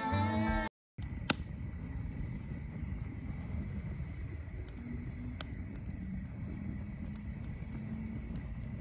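Steady outdoor ambience: a continuous thin, high drone over low rushing noise, with scattered faint clicks. A single sharp click comes just after it begins.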